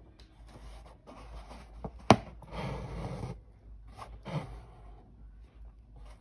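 Six-strand embroidery thread being drawn through hooped cotton fabric: several drawn-out scratchy swishes as the thread pulls through, with a sharp click about two seconds in.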